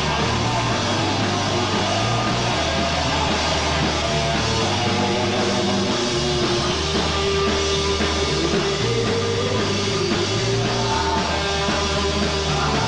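Punk rock band playing an instrumental passage without vocals, with electric guitar over a bass line that steps between notes.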